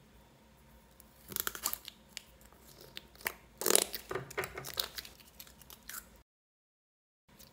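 Clear slime being pulled from its cup and squeezed in the hand, making sticky crackling and popping clicks in irregular clusters.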